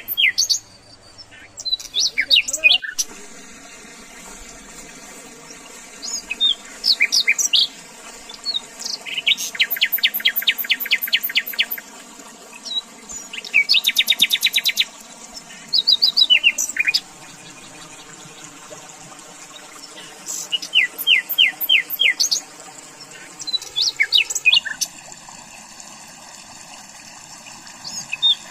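Wild songbirds singing: repeated phrases of quick high chirps and fast rattling trills every few seconds, over a faint steady background.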